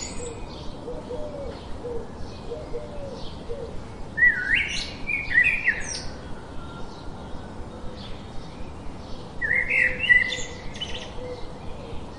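Songbirds chirping and calling outdoors, with two louder, quick chirping phrases about four and ten seconds in. Fainter, lower calls sound underneath.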